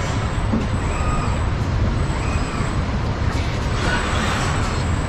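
Car-body-shop machinery running steadily, with industrial robot arms' servo motors whining up and fall in pitch several times as the arms move, and a few sharp clicks.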